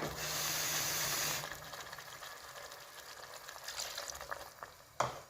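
Water poured into a hot pot of frying mutton: a loud hiss for about a second and a half, then a quieter sizzle, with a sharp click near the end.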